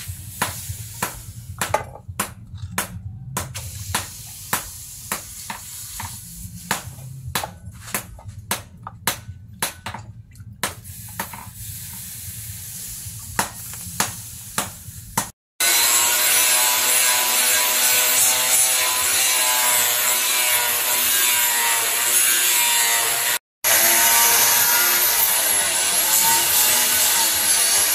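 Water splashed and poured by hand over a curved steel bill hook blade held in tongs, with many sharp clicks and taps. About halfway through, an electric angle grinder starts grinding the steel and becomes the loudest sound, a steady whine that dips in pitch near the end as the disc bears on the metal.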